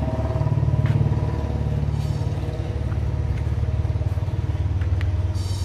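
Diesel tractor engine idling steadily, a low, even pulsing drone.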